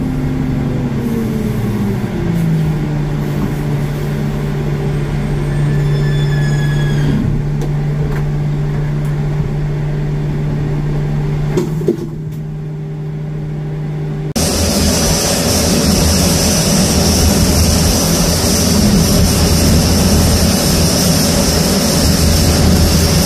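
A pushback tug's engine winds down to a steady idle, with a few sharp clicks about twelve seconds in. After a sudden change about fourteen seconds in, the Boeing 787-9's jet engines run with a steady roar and a high whine.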